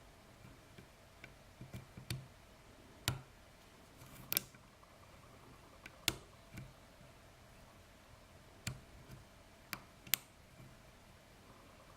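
Lock pick and tension wrench working the pin stack of a worn Ruko pin-tumbler lock: faint scattered metallic clicks and ticks, a dozen or so at uneven intervals, a few sharper than the rest.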